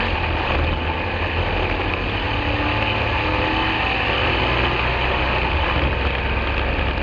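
Chevy LUV drag truck's V8 engine running steadily at low revs with a deep, even rumble, heard inside the stripped cab.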